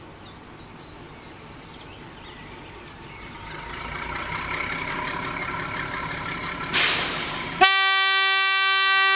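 MaK 240B diesel locomotive drawing nearer, its engine growing louder, then a short hiss and one long, loud, steady blast on its horn near the end, sounded at the whistle board before a level crossing.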